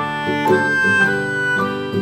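Instrumental background music: plucked notes with a held melody line over them.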